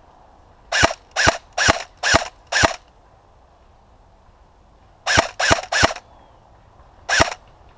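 An airsoft rifle fired as single shots, nine sharp cracks in all: a string of five about half a second apart, then three more in quick succession, then one last shot near the end.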